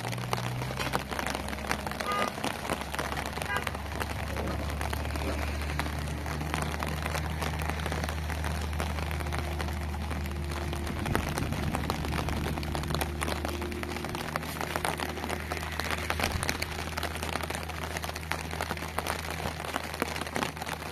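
Steady rain falling, with many small drips and patters on the ground and hard surfaces, over a low steady hum.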